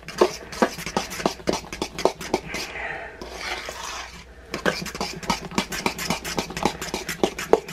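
A spoon stirring thick mashed potatoes in a stainless steel bowl, clinking and scraping against the bowl's side in quick, uneven strokes, with a stretch of softer scraping about halfway through.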